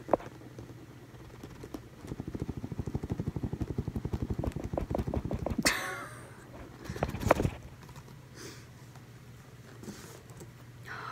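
Tight-fitting cardboard lid of a MacBook Pro box being pulled off its base: a fast, even juddering as the lid rubs and slides for a few seconds, ending in a short squeaky scrape as it comes free. Loud handling knocks of the box follow.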